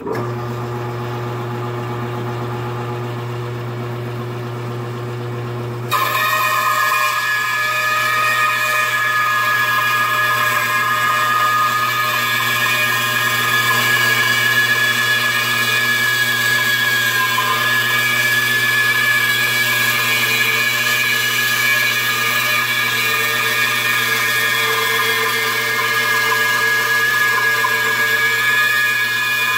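Craftsman two-speed bench band saw starting up and running free with a steady hum. About six seconds in it gets louder, with a high steady whine, as the blade rips a wooden board into thin 3/8-inch laminate strips.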